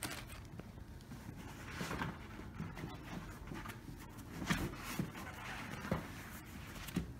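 Faint handling noise: soft rustling and a few light knocks as items and a foam insert are moved inside a hard plastic carrying case.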